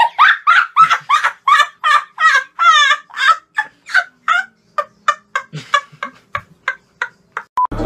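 A young man laughing hard in short, high-pitched, squeaky bursts, about three a second at first, tapering off into shorter and fainter gasps toward the end.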